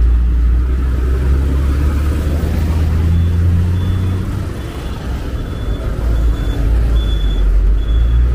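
A motor vehicle engine running steadily at idle close by, a low rumble that eases about four seconds in and picks up again near the end. A faint high beep repeats about every half-second from about three seconds in.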